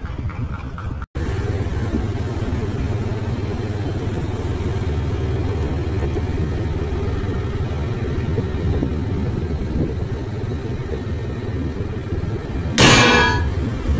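Steady low rumble of a motor vehicle's engine on the move, breaking off for an instant about a second in. Near the end a motorcycle passes close, giving a short, louder burst that fades over about a second.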